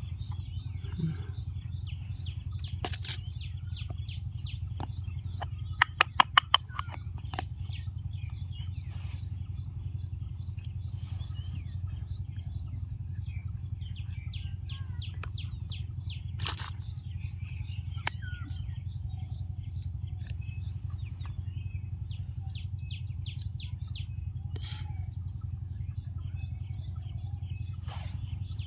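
Sharp clicks of small plastic toy pieces being handled. A quick run of about six, the loudest sounds, comes about six seconds in, with a few single clicks later. Behind them run steady bird chirping and a low hum.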